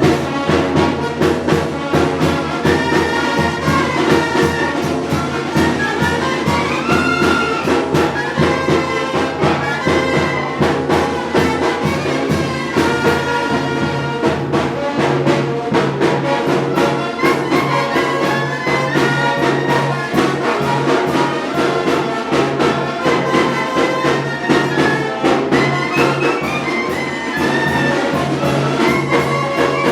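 Mexican regional brass band (banda) playing a tune: trumpets and trombones carry the melody over a steady low bass and an even percussion beat.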